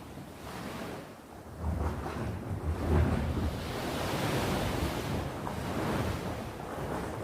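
Sea waves breaking on the shore: a wave surges in about a second and a half in, peaks around three seconds, then gives way to a steady wash of surf. Wind rumbles on the microphone.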